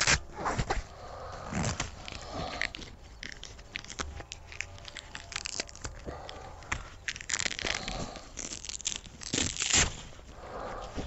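Fabric of a beekeeping suit and veil rustling and crinkling as the veil is put on and fastened, in irregular scrapes and rasps, with louder ones at the start and near the end.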